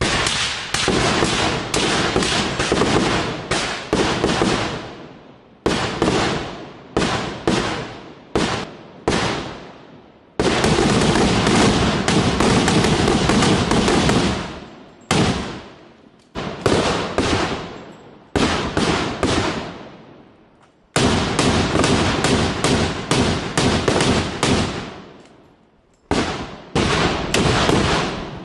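Rapid rifle fire from several shooters firing carbines at once: strings of overlapping shots, each ringing out, broken by short pauses, with the longest unbroken runs in the middle and later on.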